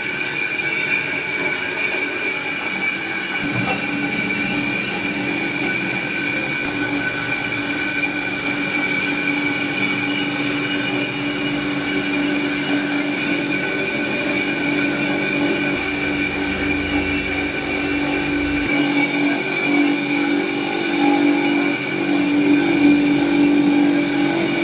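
Heavy-duty electric spice grinder-mixer running steadily with a high whine. A lower hum joins about three and a half seconds in.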